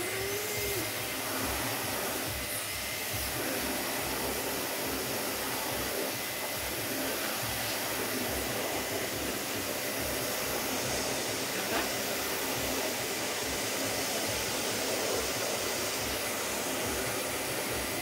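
Samsung vacuum cleaner running steadily, a continuous rushing suction with a thin high whine, as its floor nozzle is passed over a cat's fur.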